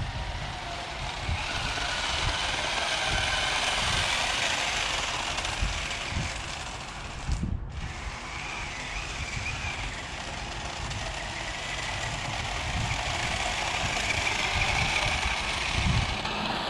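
Toy RC car's small electric motor and gears whirring as it drives, the whine rising and easing with the throttle, and stopping briefly about seven seconds in.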